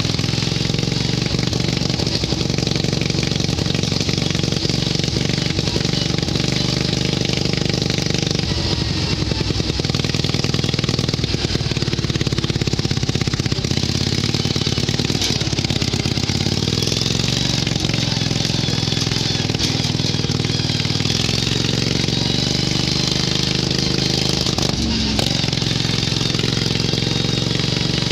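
Ride-on garden tractor's engine running under load while being driven along. The pitch dips and recovers a few times.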